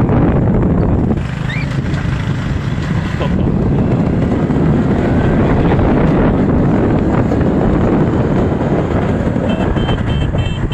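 Wind buffeting the microphone over the steady rumble of a moving road vehicle. Near the end, a quick run of short high chirps sounds over it.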